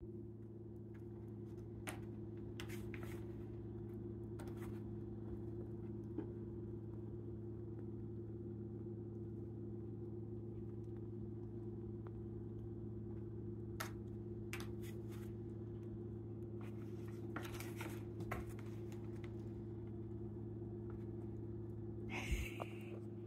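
Faint, scattered scratching and rustling of kittens' claws on a corrugated cardboard scratcher and a rug, over a steady low hum; a louder scrape about a second before the end.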